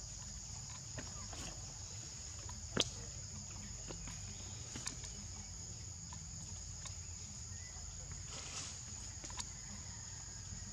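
Steady high-pitched insect chorus, two unbroken tones held throughout, with a few faint scattered clicks and one sharper click about three seconds in.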